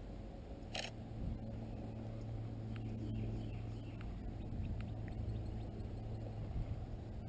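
Outdoor ambience of a steady low hum with scattered faint bird chirps, and one sharp click about a second in.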